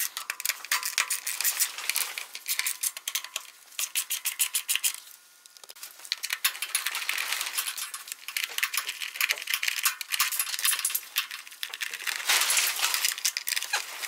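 Hand ratchet clicking rapidly as it backs off the nuts holding the engine's air-intake cover, with a brief pause about five seconds in.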